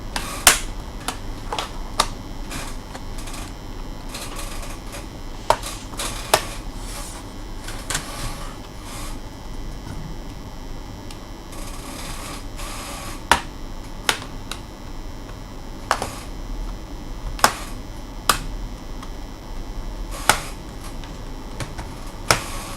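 Irregular sharp clicks and clacks, about a dozen spread unevenly, as small parts and tools of an HP 255 G5 laptop are handled during disassembly, over a steady background hiss.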